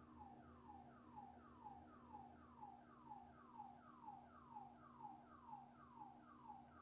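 Faint car alarm sounding a falling whoop, the same downward sweep repeated about twice a second.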